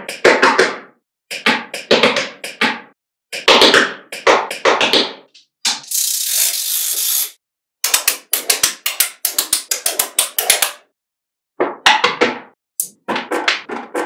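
Small magnetic balls clicking and clattering as blocks of them are snapped and pressed onto a magnetic-ball structure, in quick clusters of sharp clicks separated by short pauses. About six seconds in, a steady hiss lasts about a second and a half.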